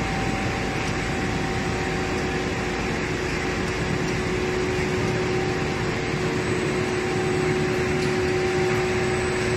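A PP/PE board extrusion line running: its roller drive motors and gearboxes hum steadily, with a constant tone over a dense machinery noise.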